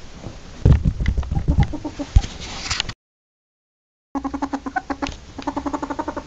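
A ferret dooking: a rapid run of short, soft clucking chuckles, about ten a second. It comes after a few seconds of thumps and scuffling and an abrupt second of dead silence.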